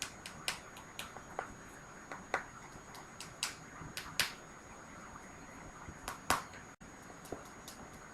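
Human joints cracking: about a dozen sharp pops and clicks, irregularly spaced, the loudest about six seconds in.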